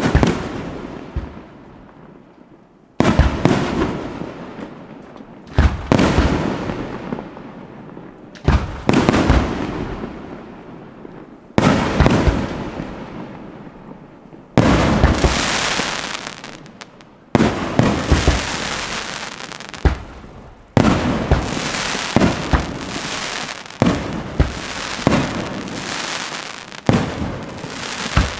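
Fireworks display: about a dozen loud shell bursts, one every two to three seconds, each echoing away slowly, with a longer stretch of crackling about halfway through.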